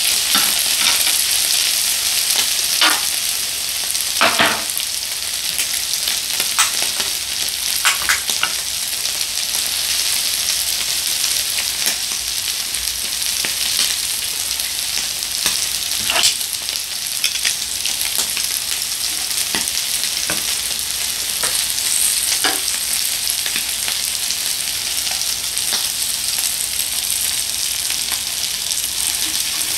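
Beef intestines (gopchang, daechang) and beef heart sizzling on a hot grill plate: a steady high hiss of frying fat, with scattered clicks of metal tongs and scissors working the meat.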